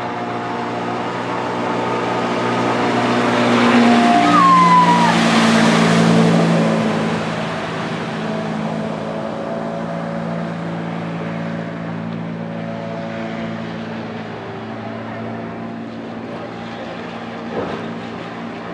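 Sea-Doo personal watercraft's engine running at speed with the hiss of its spray as it passes close by: the sound swells to its loudest about five seconds in, its pitch drops as it goes past, then it slowly fades.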